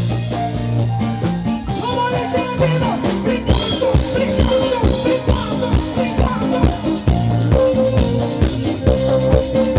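Live bachata band playing: acoustic guitar, bass and hand drums with a steady beat, and a male singer's voice at times.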